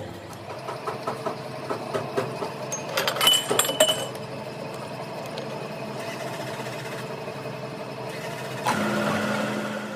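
A workshop machine running with a steady hum while metal parts clink and knock against each other for the first few seconds, the loudest ringing strikes about three to four seconds in. Near the end a second, louder steady drone starts up.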